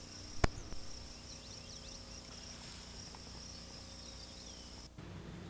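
Faint, steady, high-pitched insect buzz. A single sharp click comes about half a second in, and the buzz cuts off suddenly just before the end.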